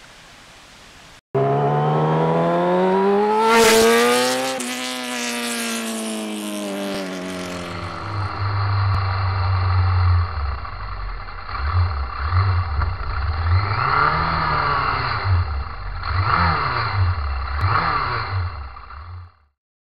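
Sport motorcycle engine pulling away, its pitch rising steadily for a few seconds and then dropping. It carries on riding with the revs swelling and easing several times, heard through a camera mounted on the bike, and cuts off abruptly near the end.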